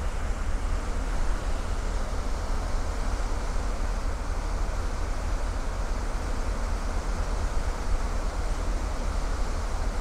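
Steady wind rumble on the microphone over the rushing of a cruise ferry's wake churning through broken sea ice.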